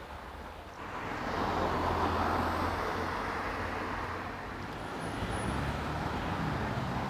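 Road traffic outdoors: a motor vehicle passes close by, rising and fading over a few seconds, and more traffic noise swells again after it.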